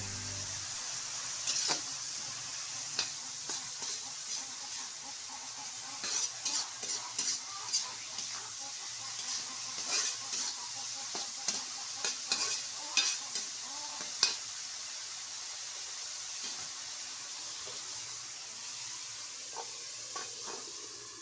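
A stir-fry sizzling in a pan while a spatula stirs and scrapes it, giving a run of sharp clicks and taps over a steady frying hiss. The stirring eases off in the last few seconds while the sizzle carries on.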